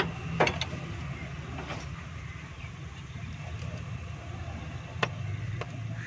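A few sharp clicks and knocks from hand work on an open Toyota K-series engine as it is turned to bring cylinder one to top dead centre. The loudest come near the start and about five seconds in, over a steady low hum.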